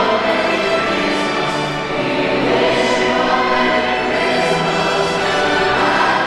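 Music: a choir singing held notes over orchestral accompaniment.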